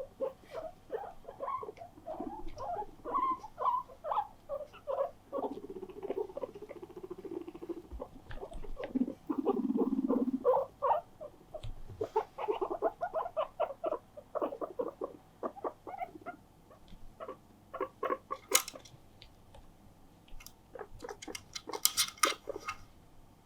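Guinea pigs squeaking ("puipui") in many quick, short repeated calls. About ten seconds in there is a lower buzzing sound, and near the end a few sharp clicks.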